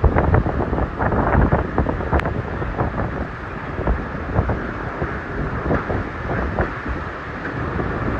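Hurricane eyewall wind gusting hard and buffeting the microphone, with heavy rain. The level swells and dips from gust to gust.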